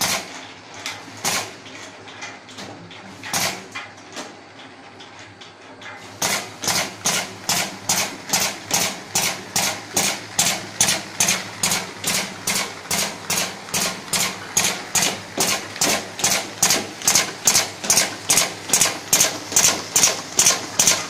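Automatic horizontal labeling machine running: a few scattered clicks, then from about six seconds in a steady rhythm of sharp clicks, about three a second, over a low machine hum.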